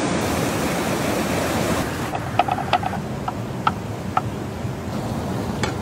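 Rushing river rapids, then, about two seconds in, a wide-bladed knife cutting mushrooms on a wooden board: about six sharp, irregularly spaced knocks with the river running behind.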